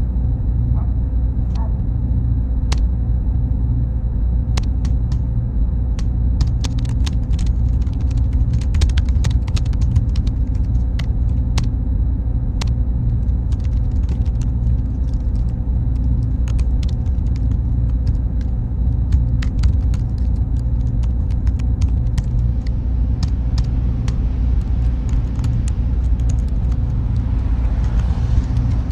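Server-room machinery, a steady deep rumble of cooling fans with a faint steady hum. A faint high whine runs alongside and stops about three quarters of the way through, and small clicks and ticks come and go throughout.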